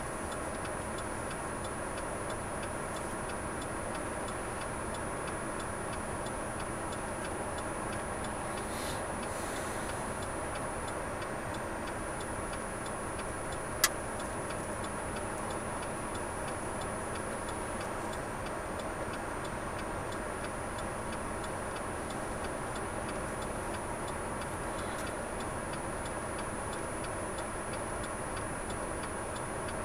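Steady cabin hum of a car idling at a stop, with the regular ticking of its turn-signal flasher. One sharp click comes about fourteen seconds in.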